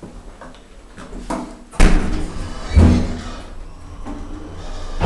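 Hydraulic elevator's sliding doors shutting with a loud bang, followed about a second later by a second heavy thud and then a low steady hum.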